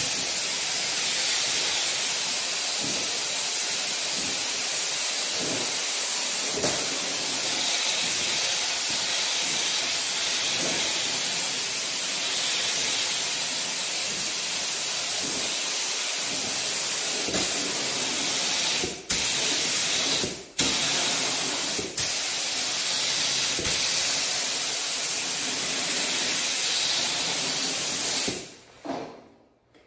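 Gravity-feed spray gun hissing steadily as it lays a flow coat of clear over a panel. The spray stops briefly a few times about two-thirds of the way through, when the trigger is let off, and dies away near the end.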